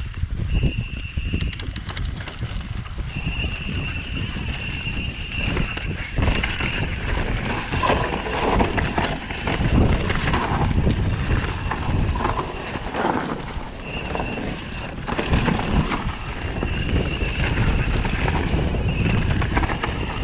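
Propain Tyee mountain bike riding down a dirt singletrack: wind buffeting the camera microphone and the tyres rumbling over the trail. A steady high-pitched buzz cuts in and out repeatedly, typical of the rear freehub while coasting.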